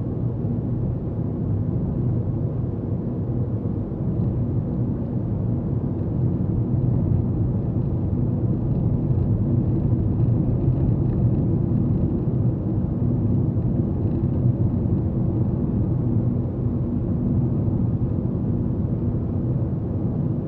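Steady low rumble of a car's engine and tyres heard from inside the cabin, cruising at about 50 km/h.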